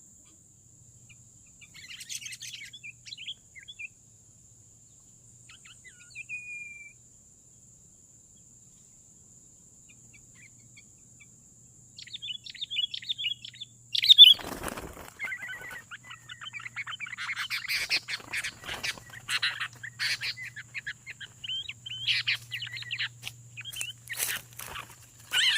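Sooty-headed bulbuls calling: a few scattered chirps at first, then from about halfway a busy run of excited chirps and scolding calls as the birds tangle. There is one sudden loud thump just after the chirping starts up.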